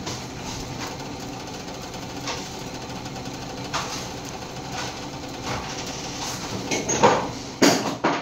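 Steady bubbling of a pot of boiling pasta water under the rustle of a cardboard pasta box being opened and handled. Near the end come a few loud, sharp cracks as the dry fettuccine breaks.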